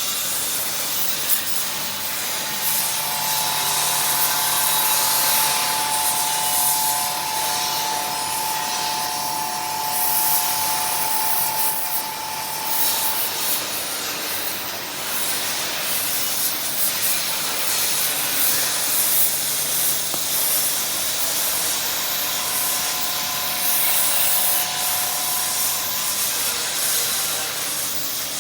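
Stick (SMAW) arc welding on cast iron with a 3.2 mm cast-iron electrode at about 90 A: the arc gives a steady crackling hiss that runs without a break.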